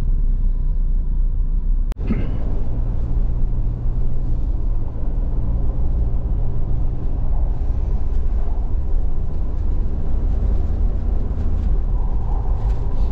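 Engine and road noise heard inside a moving car's cabin: a steady low rumble, with a brief dropout about two seconds in.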